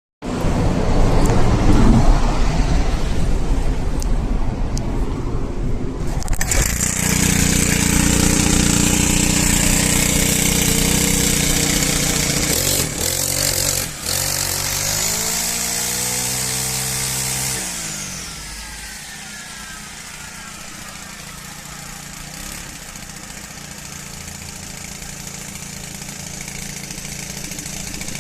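Makita MEM2651UHT engine brush cutter running: the engine speeds up about six seconds in and runs high, its pitch climbs once more and then sinks as the throttle is released around eighteen seconds, and it settles into a steady, quieter idle.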